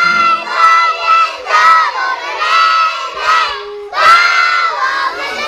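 A group of young children's voices raised together in unison, shouting or chanting in short phrases with brief pauses, loudest about four seconds in.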